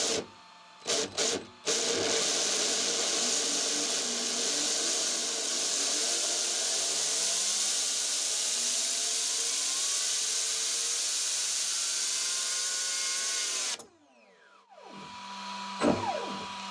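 2150 kV brushless motor on a 4S battery spinning a 3D-printed plastic gear set. After three short throttle blips it runs steadily for about twelve seconds with a whine that edges up in pitch, then cuts off suddenly and winds down with a falling whine. This is the run in which the printed gears crack and melt.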